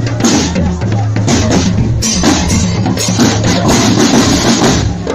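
Marching drum band playing loudly: bass drums and snare drums beating together, with steady low held tones underneath.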